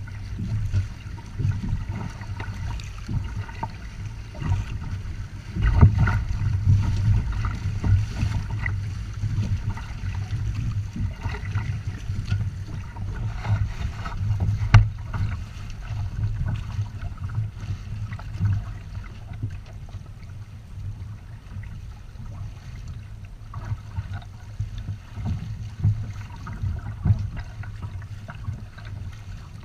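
Water rushing and splashing along the hulls of a Windrider 17 trimaran under sail, with a low rumble of wind buffeting the microphone. It swells about a fifth of the way in, and there is a single sharp knock about halfway through.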